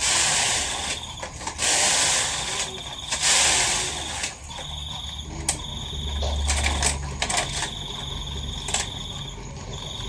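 A collage of layered everyday recordings. In the first four seconds there are several loud bursts of hissing noise. After that a high, even trill comes and goes in repeated stretches, with a low hum swelling briefly midway.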